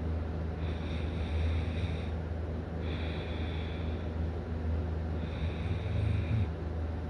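A person snoring and breathing heavily in sleep. Hissy breath noise swells and fades every couple of seconds over a steady low hum.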